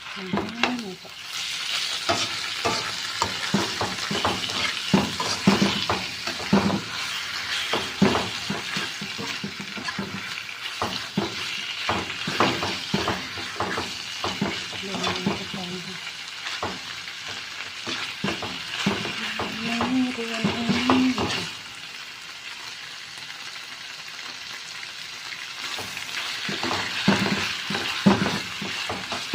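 Beef being stir-fried with red curry paste in hot oil: steady sizzling, with a spatula scraping and knocking against the pan in irregular strokes. The stirring eases off for a few seconds about three quarters of the way through, then picks up again.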